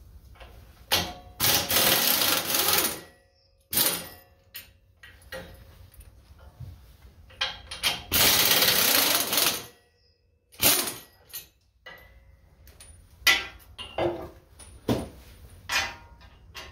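Pneumatic impact wrench hammering in bursts as it undoes the bolts holding the tractor's brush guard. There are two longer runs of about a second or more, the second about halfway through, with short blips between them and several short bursts near the end.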